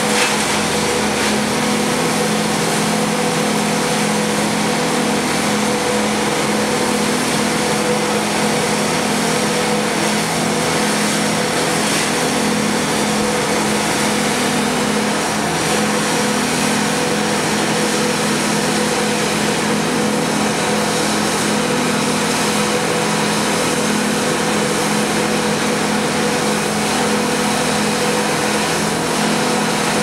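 Engine of tree-service equipment running steadily at constant speed, a continuous drone with a steady hum.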